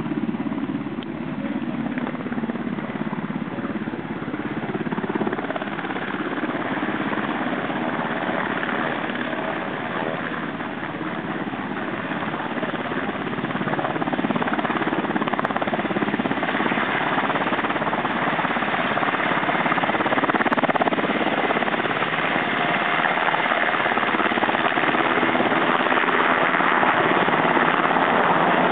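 Military helicopter's rotor and engine noise, steady and close, growing louder about halfway through.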